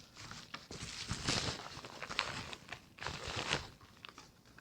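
Paper and plastic packaging rustling and crinkling as a parcel is handled and unpacked by hand, in irregular bursts with small clicks, heaviest about a second in and again about three seconds in.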